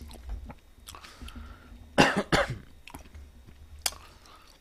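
A person coughs twice in quick succession about two seconds in, while eating chicken, with faint chewing clicks before and after.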